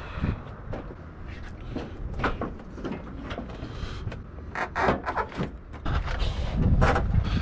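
Plastic front bumper cover being handled and fitted back onto the car, giving a string of irregular knocks, clicks and rattles, with a cluster of louder knocks about four to five seconds in.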